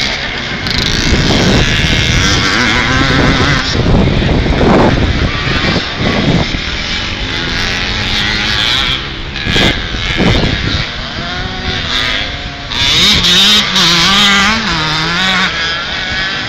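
Vintage motocross bikes racing past, their engines revving hard and falling back as the riders work the throttle through the turns. Near the end, one engine's pitch swings up and down several times in quick succession.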